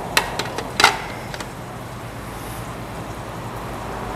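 A few sharp clinks of utensils against dishes in the first second, then the steady rumble of passing road traffic.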